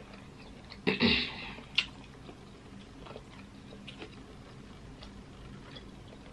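Close-miked eating of sauce-coated seafood: a loud wet mouth sound about a second in and a sharp click just after, then quiet chewing with scattered small clicks.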